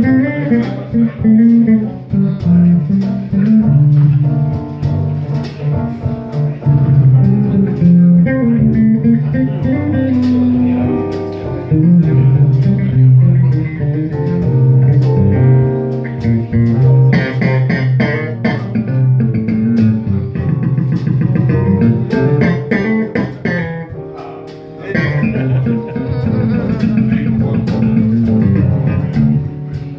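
A live jazz band playing: a five-string electric bass carries the loudest, moving lines, with drum kit cymbals and higher melody notes from steelpans and keyboard above. The music drops briefly near the end before picking up again.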